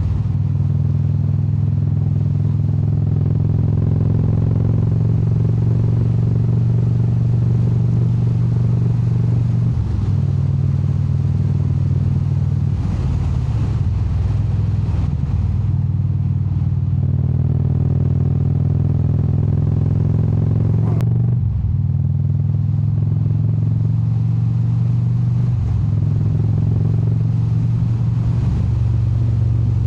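Indian Super Chief Limited V-twin motorcycle engine running under way on the road. Its note dips briefly and picks back up several times, as with throttle roll-offs or gear changes, with wind and road noise underneath.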